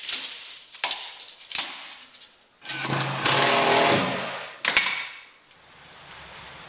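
Handheld power drill running for about a second and a half, driving into a plank wall, with sharp knocks of tools against wood before and after. A faint low rumble follows near the end.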